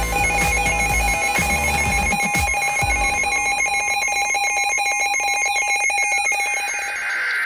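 Electronic emergency alert tone, trilling rapidly between two pitches like a ringing telephone, over a fast run of clicks, with a falling sweep partway through.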